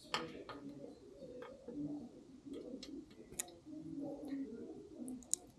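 Light clicks and taps as the torque-sensor bottom bracket unit and its cable are handled and lined up in the frame shell, with a pigeon or dove cooing in the background.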